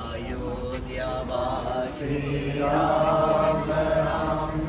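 Group of voices chanting a Hindu devotional chant on long held notes, swelling louder as more male voices join about two seconds in.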